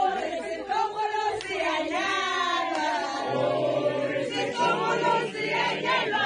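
A crowd of voices singing together, a traditional wedding song.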